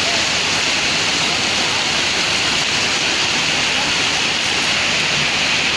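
Heavy monsoon rain falling, a loud steady hiss.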